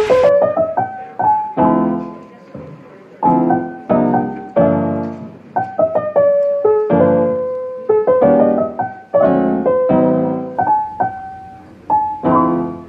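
Background piano music: a soft melody of notes and chords, each struck and left to fade, about one or two a second.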